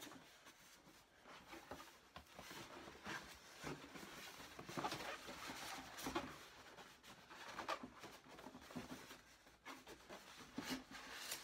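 Cardboard box scraping and rubbing against a styrofoam packing insert as the box is slid off it, with scattered light knocks and squeaky scuffs.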